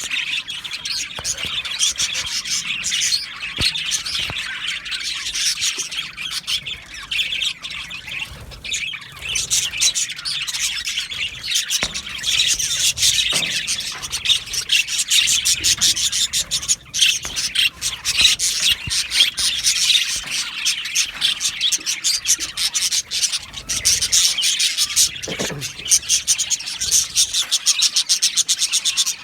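A flock of budgerigars chattering, chirping and warbling, many birds calling over one another without a break.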